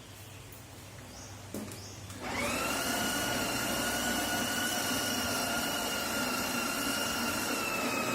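A click, then an electric coffee grinder's motor starts about two seconds in, quickly spinning up to a steady high whine and running on.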